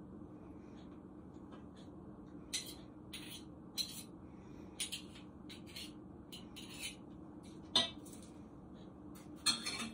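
A spoon clinking and scraping against dishes while mayonnaise is spooned into a bowl: scattered light taps, the loudest a little before the end, over a low steady hum.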